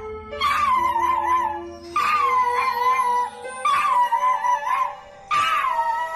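A small poodle-type dog howling in about four wavering calls, each a second or so long with short gaps, while its paws rest on a toy electronic keyboard that sounds held notes under the howls.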